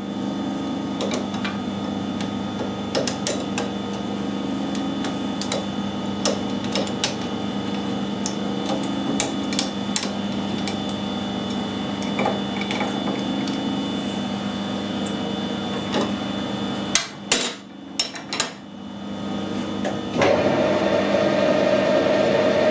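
Metal clinks and taps of a large adjustable spanner and a lathe carrier on a test bar set between the lathe centres, over a steady machine hum, with a few louder clanks near the end. About 20 s in the lathe starts up and runs with a steady hum.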